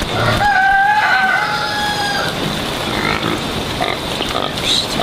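Pigs grunting, with one long, slightly falling squeal about half a second in.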